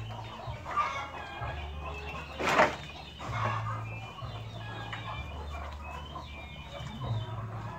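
Chickens clucking and chirping in short calls throughout, with one loud, short noise about two and a half seconds in and a steady low hum underneath.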